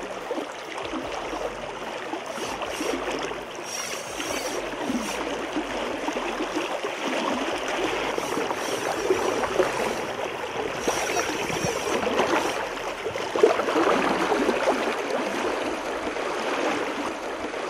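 Fast-flowing river current rushing and swirling steadily around a wading angler's legs, with one brief sharper sound about two-thirds of the way through.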